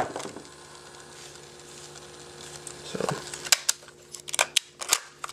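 Plastic and metal clicks from handling an Aiwa HS-P7 CassetteBoy portable cassette player: one sharp click at the start, then a quick run of clicks and taps in the last two seconds, over a faint steady hum.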